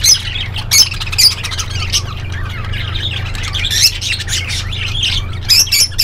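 A flock of budgerigars chattering, with many short, overlapping high chirps and squawks over a steady low hum.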